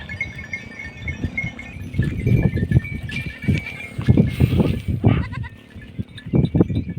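Flock of sheep and goats bleating, with the clink of livestock bells.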